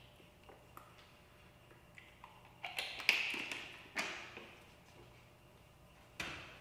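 Thin plastic water bottle being handled: a few light clicks and crackles of the cap and bottle, a louder crinkling about three seconds in, a knock about four seconds in and a sharp click near the end, each with a short echo off the tiled walls.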